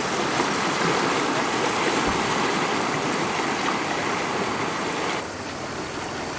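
Floodwater rushing steadily, a loud even wash of water noise that drops somewhat about five seconds in.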